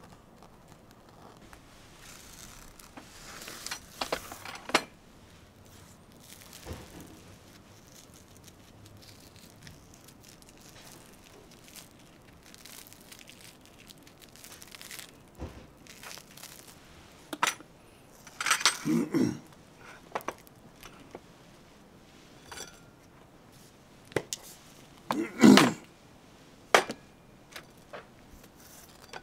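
Breakfast-table handling noises: bread crusts being pulled off by hand with soft tearing and rustling, and light clinks of a knife, plate and bowl. There are two louder, short bursts of clatter, about 19 and 25 seconds in.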